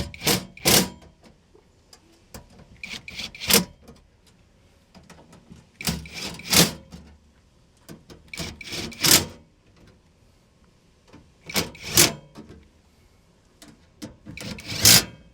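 Cordless drill-driver run in six short bursts, about every three seconds, driving home the cover plate's bolts one after another.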